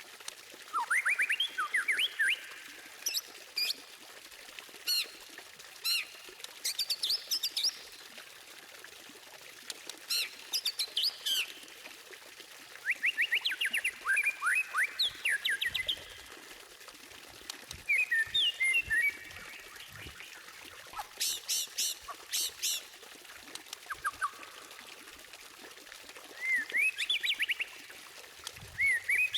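White-rumped shama singing in short bursts of rapid, varied phrases, with quick rising sweeps and fast runs of high repeated notes, separated by pauses of a second or two, over a steady background hiss.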